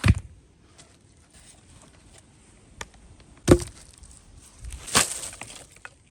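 Blade chopping into wood: three hard strikes, at the very start, about three and a half seconds in and about five seconds in, the last with a short splintering rasp, with lighter taps between.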